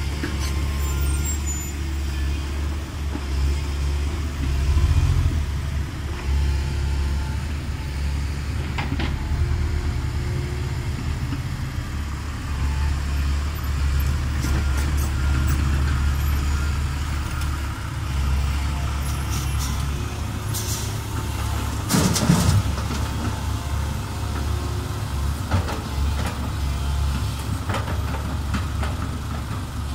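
Heavy diesel engines of a Komatsu PC130 excavator and a dump truck running steadily as the excavator digs and loads, with a brief louder clatter about 22 seconds in.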